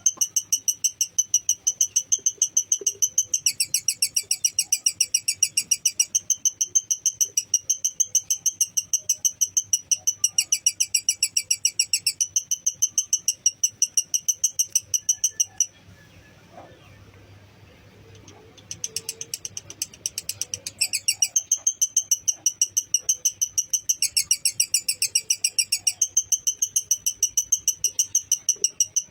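Lovebird singing its long 'ngekek' chatter: a fast, even run of sharp high notes that breaks off about 16 seconds in and starts again some three seconds later.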